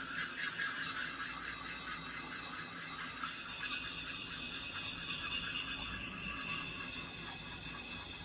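Background music, with sustained high notes that change about three seconds in.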